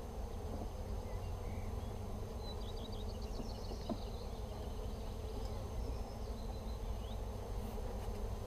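Honeybees buzzing steadily around an opened hive.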